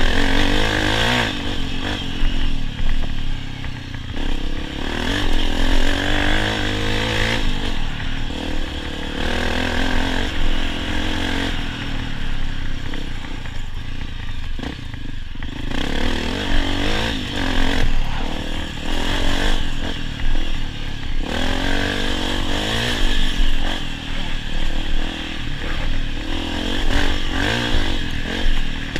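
Honda CRF250F dirt bike's single-cylinder four-stroke engine being ridden hard, revving up and dropping back again and again as the throttle opens and closes.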